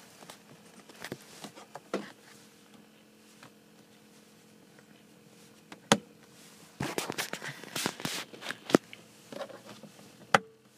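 Scattered clicks, knocks and rustling from handling inside a car cabin, over a faint steady hum; the engine is not running.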